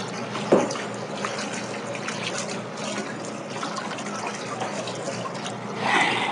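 Water running and trickling in a kitchen, with a light knock about half a second in.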